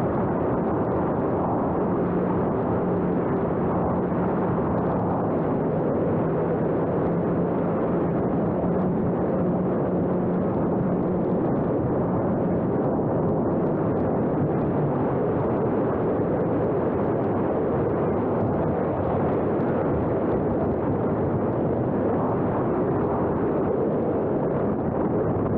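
Steady wind rush buffeting the microphone. A faint steady hum runs under it and fades out about halfway through.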